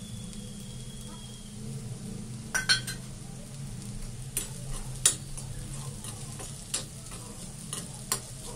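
Metal spoon stirring a mixture in a steel kadhai, knocking and scraping against the pan in several sharp clinks over a faint sizzle of frying, with a low steady hum underneath.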